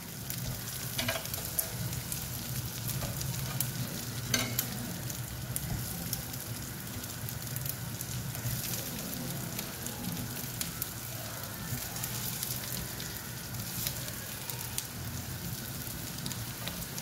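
Oil sizzling with fine crackles as patra slices and sesame seeds pan-fry on a nonstick dosa tawa, with a couple of light knocks in the first few seconds.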